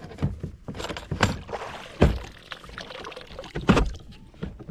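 A kayak being moved about on the water, with several sharp hollow knocks on the hull over a low watery background; the loudest knocks come about two seconds in and again near the end.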